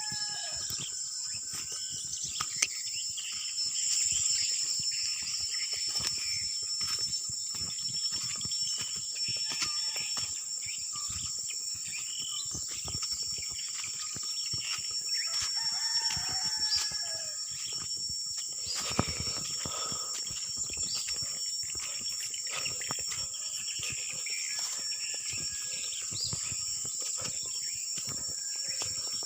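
Chickens calling now and then over a steady high-pitched insect drone.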